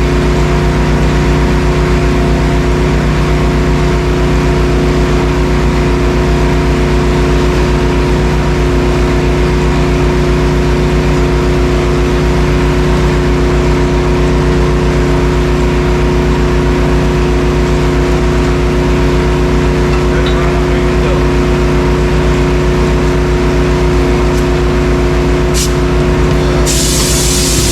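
An engine running steadily at a constant speed, with no change in pitch. A loud hiss starts up near the end.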